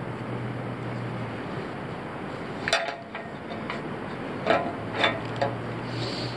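About five sharp metallic clinks, the loudest near the three- and four-and-a-half-second marks, as steel quick links and rope are handled against a hollow aluminium pole. They sit over a steady low hum and rush of background noise.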